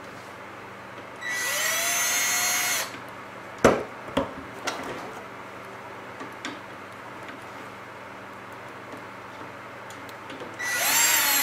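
Cordless drill/driver driving the fan's mounting screws into the light's chassis in two short runs, its motor whine rising as it spins up, the first about a second in and the second near the end. A sharp knock a little under four seconds in, with a few lighter clicks after it.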